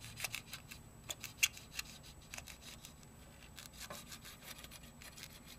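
Curved-blade X-Acto knife cutting 1/16-inch sticky-back foam around a hole in a clear plastic case: faint, irregular small clicks and scratches as the blade works its way around.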